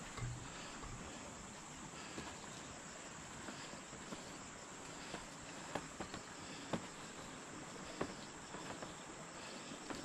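Steady chorus of insects with a constant high-pitched hiss. A soft thump comes at the very start, and a few sharp clicks and knocks are scattered through the second half, the loudest about 6.7 and 8 seconds in.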